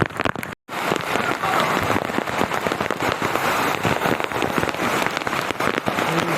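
Heavy rain falling hard, a dense, steady patter of drops. The sound cuts out for a split second just after the start.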